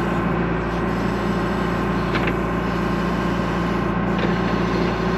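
John Deere 310 backhoe's diesel engine running steadily, with a couple of faint clicks about two and four seconds in.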